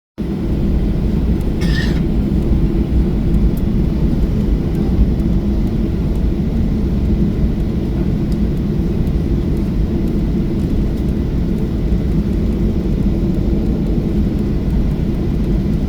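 Steady low rumble of a Boeing 737-800's CFM56-7B turbofan engines, even in level, with a brief high chirp about two seconds in.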